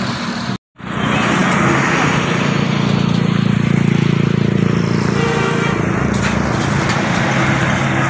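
A large coach bus drives past: its diesel engine hums steadily over tyre and road noise, growing loud as it comes close. Just before, the sound cuts out completely for a moment.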